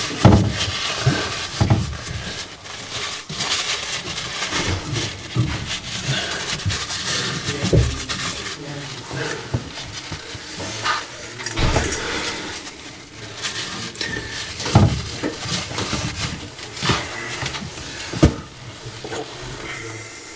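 Handling noise under a sink: a cloth rag rubbing on copper pipe to wipe off excess soldering flux, with rustling and scattered sharp knocks as tools and pipework are handled.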